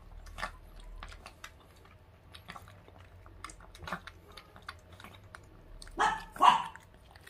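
A Dansung-gae puppy eating mushy food from a stainless steel bowl: scattered wet chewing, lapping and smacking clicks. Two louder sounds come close together about six seconds in.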